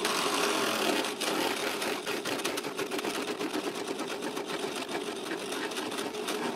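Cheap low-power drill press running with a Forstner bit boring into plywood: a steady motor hum under the scratchy, rapidly ticking sound of the bit cutting chips.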